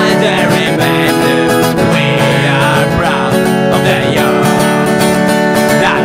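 Acoustic guitar strummed steadily in an acoustic punk song, loud and unbroken.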